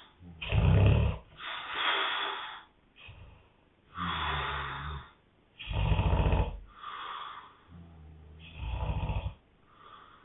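A sleeping man snoring: three loud, low rattling snores, each followed by a breathy exhale, in a slow cycle about every three seconds.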